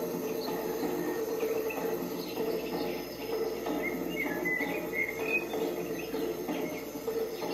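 Jungle ambience soundscape: a steady drone of insects with scattered bird chirps, which cluster about four to five seconds in.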